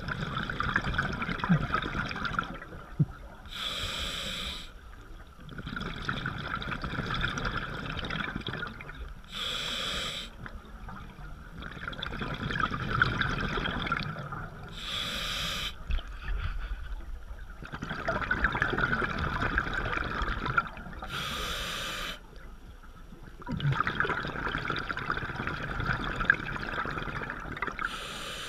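Scuba diver breathing through a regulator underwater: a short, sharp hiss on each inhale and a few seconds of bubbling exhaust on each exhale, about one breath every six seconds.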